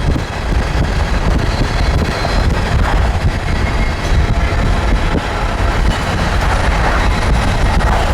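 A train going by: a loud, steady rumble of rolling railcars.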